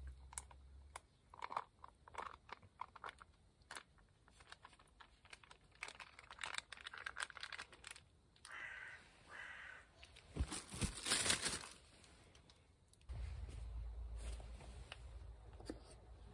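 A metal spoon clicking and scraping against an aluminium mess tin as sauce is served over rice. A little past the middle comes a loud crinkle of a food pouch being handled.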